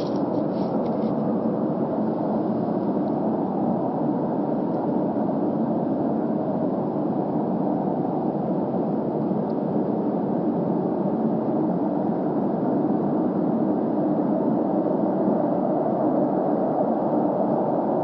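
Unexplained steady low rumbling drone in the night sky, without a clear pitch, growing slightly louder about two-thirds of the way in.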